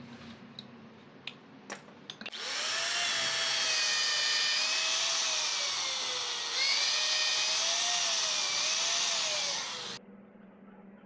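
Handheld power drill running for about seven and a half seconds with a wavering pitch, cutting off suddenly near the end. A few light metallic clicks come before it starts.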